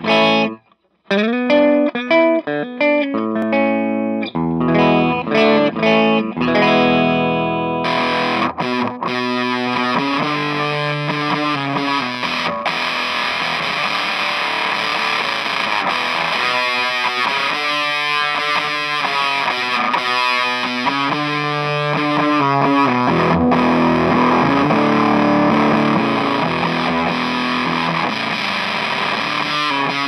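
Electric guitar played through an EarthQuaker Devices Park Fuzz Sound pedal: separate picked notes with gaps at first, then from about eight seconds in, with the fuzz switched on, a dense, raw, heavily fuzzed sustained tone.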